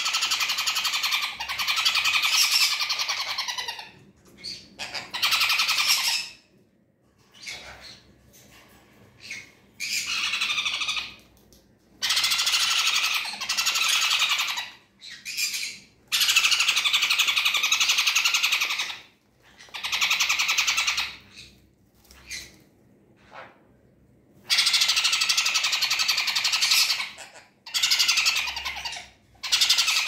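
Sun conure chicks giving rasping begging calls while the parent birds feed them, in repeated bursts of one to four seconds with short pauses between.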